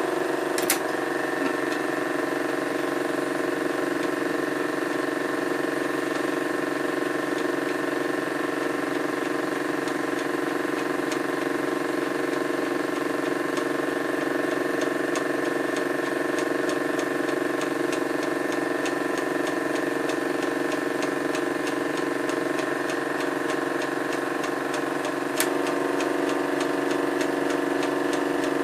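Chinon Sound 8000 Super 8 projector running, freshly lubricated and fitted with a new motor belt: a steady motor hum with the fast, even ticking of the film transport mechanism. Two sharp clicks, about a second in and near the end.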